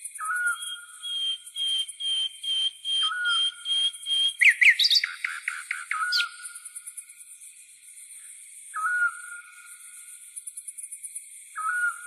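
Birdsong over a steady high insect chirring: a short whistled call that jumps up and then levels off repeats about every three seconds, with a held high note and a quick run of chirps in the middle.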